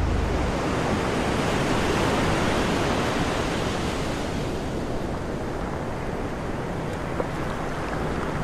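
Beach surf and wind on the microphone: a steady, even hiss that eases off slightly toward the end.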